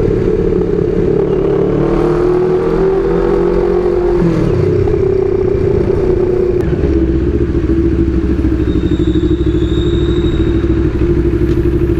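Motorcycle engine running steadily, its pitch dropping about four seconds in and then holding level.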